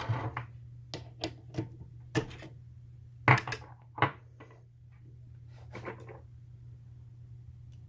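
Irregular sharp metallic clicks and taps, about nine spread over the first six seconds, from handling a brass cartridge case and tools at a mini lathe after cutting around the Berdan primer. A steady low hum runs underneath.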